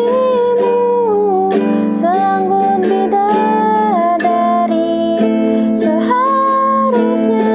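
Six-string guitalele strummed in a steady down-down-up-up rhythm, playing the song's chords. A woman's voice sings or hums the melody along with it.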